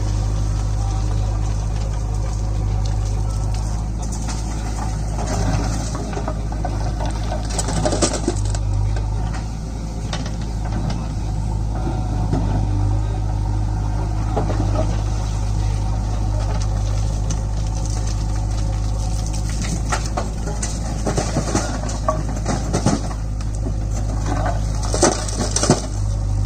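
Steady drone of diesel engines from an idling tractor and a JCB backhoe loader, with loose stones and rubble clattering into a tractor trolley in irregular bursts, heaviest about eight seconds in and again in the last several seconds.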